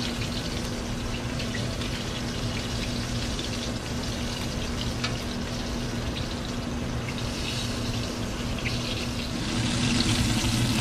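Flour-battered squirrel pieces frying in oil in a cast iron skillet: a steady sizzle with scattered small pops and crackles, getting louder near the end. A steady low hum runs underneath.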